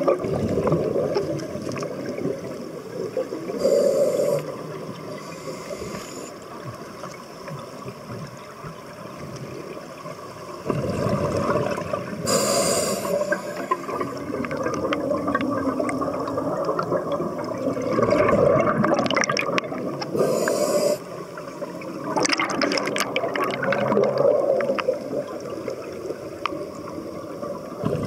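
Scuba diver breathing through a regulator underwater: several short hissing inhalations, each followed by a long gurgling rush of exhaled bubbles.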